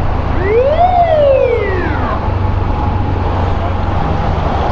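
An ambulance siren sounds one rising-then-falling wail: up for about half a second, then down over the next second. Under it is the steady running of a Yamaha YBR125 motorcycle and road noise.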